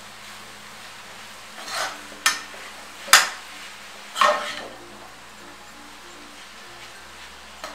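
Perforated metal spatula scraping and knocking against a metal kadai as noodles are tossed and stirred: four strokes in the first half, then one brief tap near the end.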